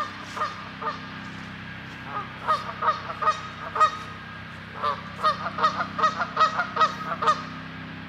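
Canada geese honking back and forth: a few scattered honks, then quick runs of calls about two seconds in and again from about five seconds.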